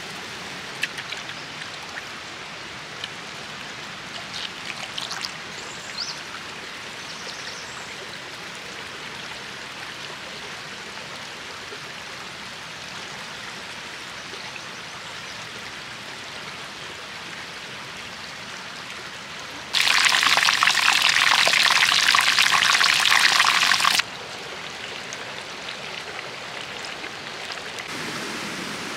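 Steady rush of a flowing stream, with a few light taps in the first seconds. About twenty seconds in, oil in a cast-iron pan sizzles loudly for about four seconds, then cuts off abruptly.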